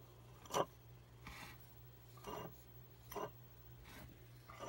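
Short scraping and rustling noises as the homemade pencil-lead arc device is handled on the wooden tabletop, about once a second, over a faint steady hum.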